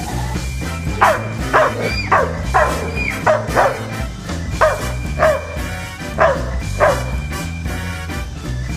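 A German shepherd giving about ten short, high yips, each falling sharply in pitch, in quick pairs and runs. Background music plays underneath.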